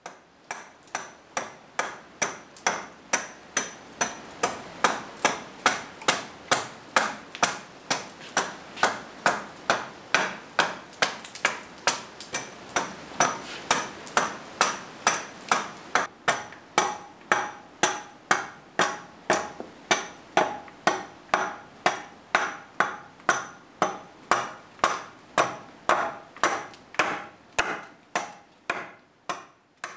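Hatchet chopping at a forked oak branch in steady, even strokes, about two a second, hewing off bark and wood.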